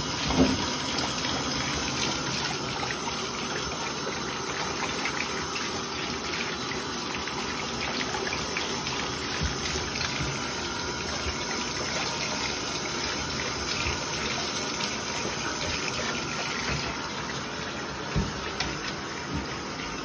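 Bathtub faucet running, water pouring from the spout into the tub in a steady gush. A couple of brief knocks near the end.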